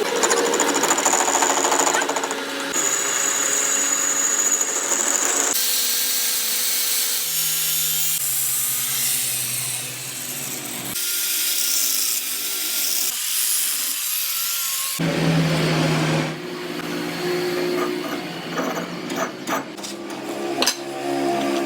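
Workshop power tools running on metal parts, in several short segments that change abruptly, with a high steady whine in the first and a few sharp knocks near the end.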